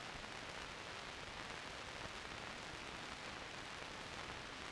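Steady hiss of an old film soundtrack's background noise, with no other sound.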